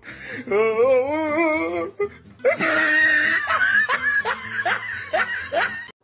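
High-pitched laughter: a wobbling stretch, then after a short pause a run of rising cries about every half second, cut off abruptly at the end.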